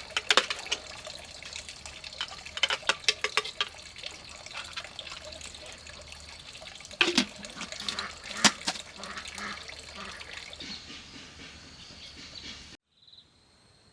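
Water splashing and sloshing, with clusters of sharp splashes and knocks. About 13 seconds in it cuts off abruptly to a faint, steady insect drone.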